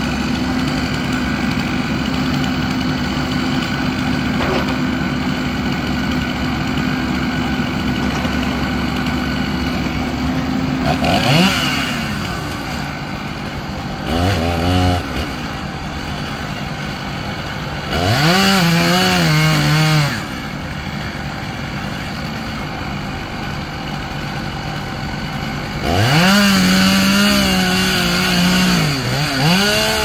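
A chainsaw revving up in four bursts, each rising sharply in pitch and holding at full speed, the last and longest lasting about three seconds. Before the bursts, an engine runs steadily for about ten seconds.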